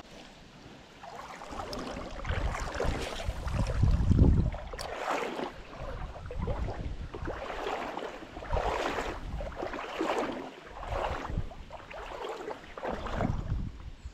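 Creek water sloshing and splashing in uneven surges, as from someone wading, with wind rumbling on the microphone, loudest about four seconds in.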